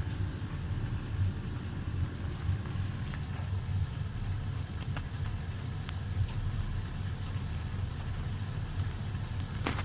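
Bosch washing machine and tumble dryer running together: a steady low rumble, with a few faint ticks and a sharper click near the end.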